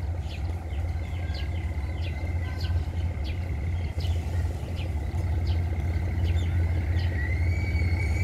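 Diesel locomotive of an ordinary passenger train approaching slowly, a steady low engine rumble growing gradually louder. Birds chirp in quick, repeated short notes over it, and a short rising whistle sounds near the end.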